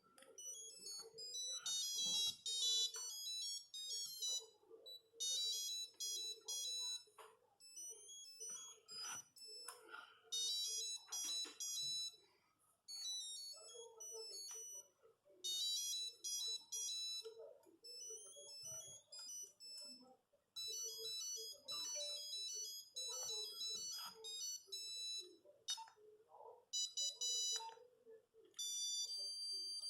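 Nokia 8210 mobile phone playing its monophonic ringtone melodies: buzzy, high-pitched notes in short bursts of a few seconds, separated by brief pauses, with scattered clicks between them.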